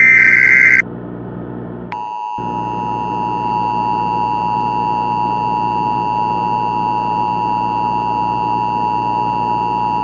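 Emergency Alert System tones. A short burst of SAME header data tones lasting under a second is followed, after about a second's gap, by the EAS two-tone attention signal (853 and 960 Hz sounding together). The attention signal starts about two seconds in and holds steady, announcing that an emergency voice message follows.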